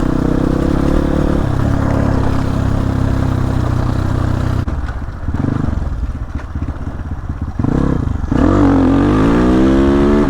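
Motorcycle engine running under way at a steady speed. It eases off about halfway, then is revved hard near the end, its pitch rising as it accelerates.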